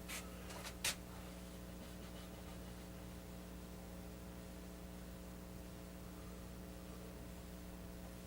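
Steady electrical hum, with two short sharp clicks in the first second, the second the louder.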